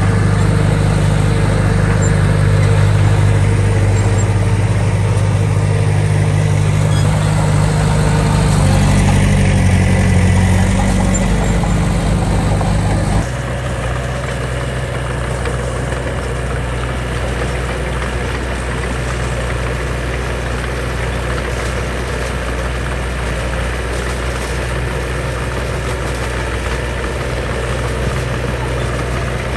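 Heavy construction machine's diesel engine running with a loud, steady low drone. About 13 seconds in, it drops suddenly to a quieter, lower hum.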